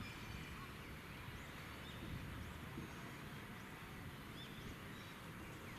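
Faint outdoor ambience: small birds giving many short, high chirps over a steady low background rumble.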